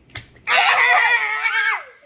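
A girl's loud, high-pitched scream lasting a little over a second, preceded by a short click.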